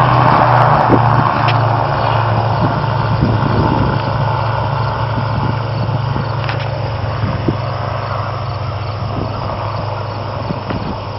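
Small aircraft's engine drone after a low pass over the runway, steady in pitch and fading as it flies away.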